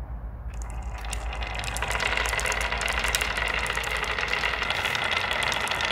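A line of blue marbles rolling down a winding groove routed into plywood, a dense clicking rumble as they knock against the wooden walls and each other. It starts about half a second in and builds to a steady level.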